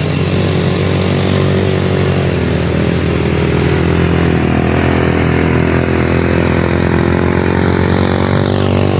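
Quad ATV engine running steadily.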